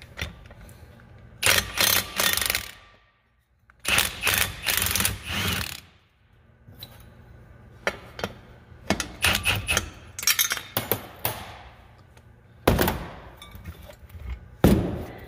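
Milwaukee cordless impact driver hammering in several bursts of a second or two each, spinning the nut off the hub bolt of a cast iron planter closing wheel so that the wheel's worn bearing can be replaced.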